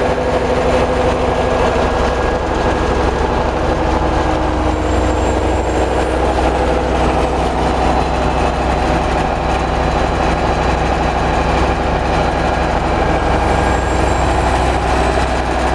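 Large multi-cylinder gas engine of a biomass-gas generator set running at a steady speed. It is an even, unchanging engine sound with no starts or stops.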